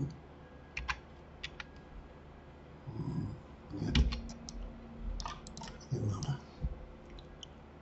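Computer keyboard keys and mouse buttons clicking in irregular groups, mixed with a few dull low thumps.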